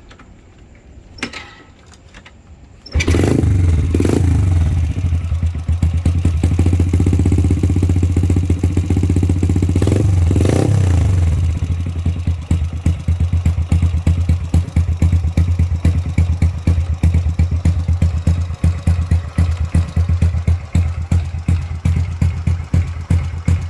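Honda Wave 100's single-cylinder four-stroke engine through an open exhaust pipe, starting about three seconds in and running loud at a fast idle. It is blipped twice, then settles into a lumpy idle of separate, uneven exhaust pops.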